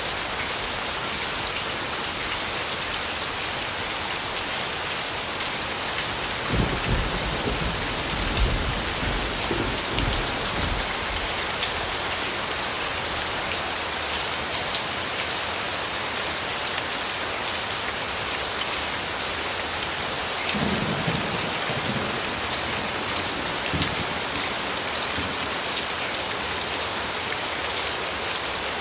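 Steady heavy rain, an even hiss of drops. Low rumbles of thunder come twice, about a quarter of the way in and again past the two-thirds mark.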